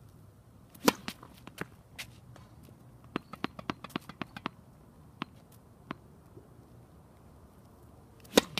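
Tennis ball struck hard by a racquet, once about a second in and again near the end, with a series of lighter taps between, like the ball bouncing on the court.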